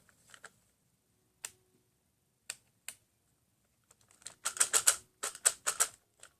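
Sharp plastic clicks from a toy robot: a few single clicks, then a quick run of clicks a little past the middle.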